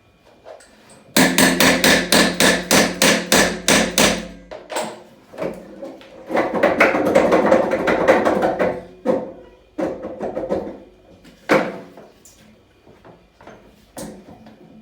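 A hammer striking repeatedly in a quick run of about four ringing blows a second for some three seconds. This is followed by a few seconds of dense clatter and then two single knocks near the end.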